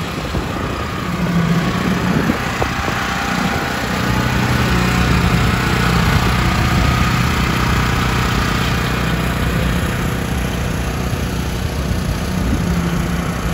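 Steady engine noise at a concrete pour: a small gasoline engine running the concrete vibrator, over the diesel of a concrete mixer truck discharging down its chute. It gets a little louder about four seconds in.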